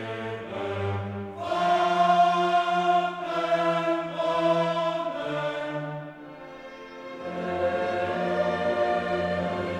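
Choral and orchestral music: a choir singing held chords over an orchestra, softening briefly partway through before swelling again.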